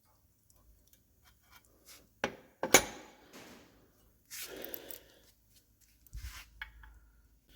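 Metal engine parts knocking and scraping: two sharp clunks a couple of seconds in, then a short scrape, as a crankshaft is set into an engine block with its gear meshing into the cam gear.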